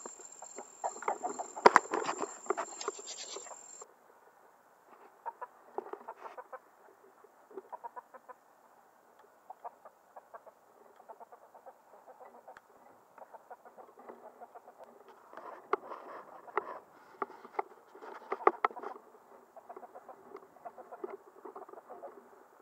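Chickens clucking in short, irregular runs, busiest about two seconds in and again past the middle.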